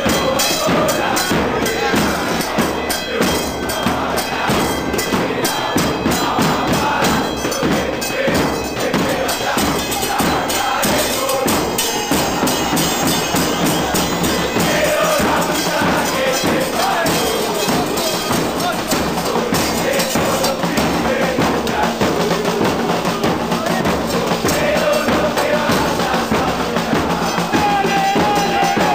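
A crowd of football supporters singing a terrace chant over a steady beat of drums and percussion.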